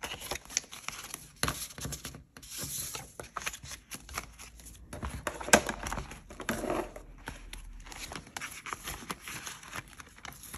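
Paper banknotes and a paper card rustling and crinkling as they are handled and slid into a plastic binder pocket, with scattered light clicks and taps.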